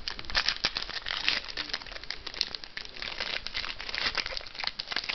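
Crinkling and rustling of a trading-card pack's foil wrapper being handled and pulled open, with the cards slid out and thumbed through. A steady run of quick crackles.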